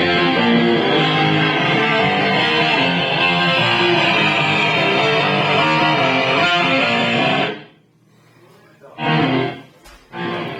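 A band playing, led by guitar, that stops abruptly about three-quarters of the way through, followed by two short loud sounds.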